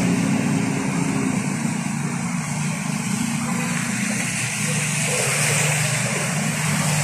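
Motorcycle engines running steadily as they ride through flood water, over an even wash of water noise.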